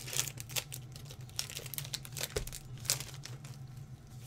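Foil wrapper of a Pokémon booster pack crinkling as it is handled and torn open by hand, a continuous run of irregular crackles with a soft thud partway through.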